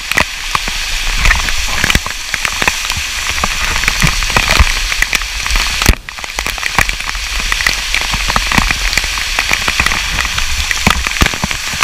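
Water of a limestone waterfall cascading and splashing right at the microphone: a steady loud rush shot through with many sharp crackling hits, with a brief break about six seconds in.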